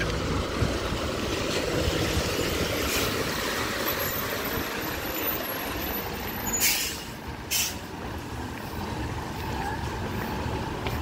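Road traffic with heavy trucks on a wet road: a steady engine rumble and tyre noise, with two sharp air-brake hisses a little past the middle, the first longer than the second.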